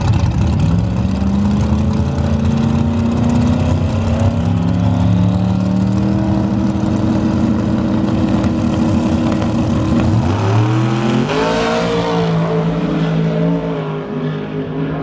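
Two drag race cars' engines running at the starting line, then launching about ten seconds in: the engine pitch climbs sharply, steps through a shift or two and fades as the cars pull away down the strip.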